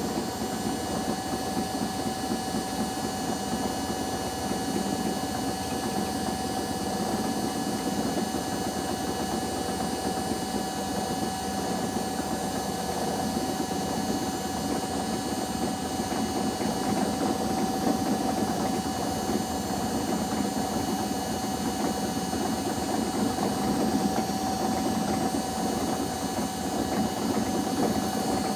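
Washing machines running in the spin cycle: a steady motor whine over the constant rumble of the spinning drums.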